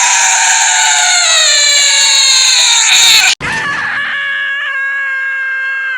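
Two cartoon character screams in a row: a loud, strained scream slowly falling in pitch that cuts off abruptly, then a quieter, steadier wailing scream.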